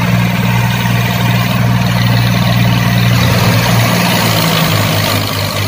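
Diesel engines of a Farmtrac 60 and a Mahindra 265 tractor running hard under load as the two pull against each other, chained back to back. The engine note changes about three seconds in.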